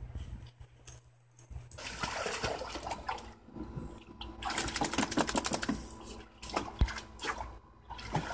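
Water splashing in uneven spells as a pit bull wades and dips its head in a plastic kiddie pool, starting about two seconds in.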